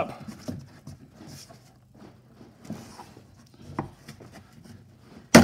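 A flat screwdriver and hands working at a plastic door armrest trim panel: faint rubbing and small clicks, then a loud sharp clack near the end.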